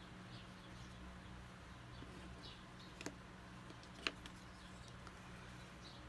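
Quiet room tone with a steady low hum, a few faint short chirps, and two small sharp clicks about three and four seconds in, from painting tools being handled on the craft table.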